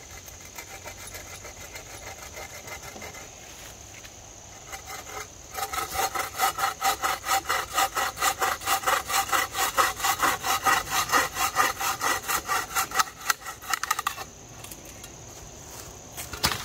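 Hand saw cutting through a wooden support stick in rapid back-and-forth strokes. A few light strokes come first, then after a short pause comes steady, louder sawing for about eight seconds that stops near the end.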